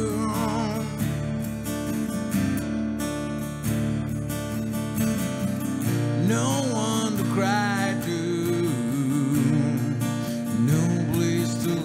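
A man singing to his own strummed acoustic guitar, his voice coming in phrases over steady chords.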